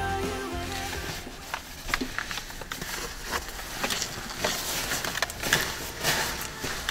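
Rustling and light clicks of someone handling bags and gear inside a car with its rear door open: an irregular string of short scuffs and taps. A background music track ends about a second in.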